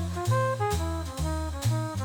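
Instrumental jazz background music: a bass line stepping through notes about twice a second under a melody, with light drum-kit cymbal ticks.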